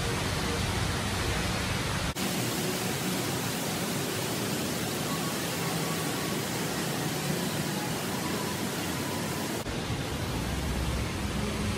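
Steady rushing of falling water from the Rain Vortex indoor waterfall, with the deep rumble dropping out abruptly about two seconds in and coming back near the end.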